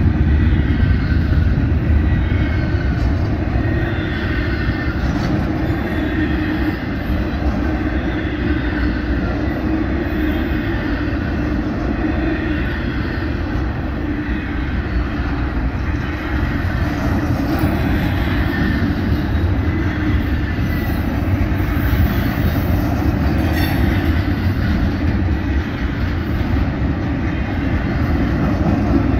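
Double-stack intermodal container well cars of a freight train rolling past, a steady noise of steel wheels running on the rails.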